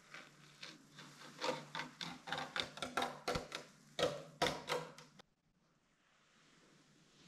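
Masking tape being peeled off the painted deck of a wooden surfboard, giving a run of crackling snaps and ticks over a faint hum. It cuts off suddenly about five seconds in, leaving a faint hiss.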